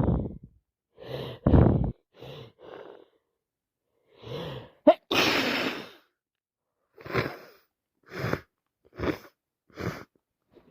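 A woman in a sneezing fit: several wet sneezes in a row, the loudest at the start and about five seconds in, with shorter breaths between. The fit comes from a cold or allergies, and she isn't sure which.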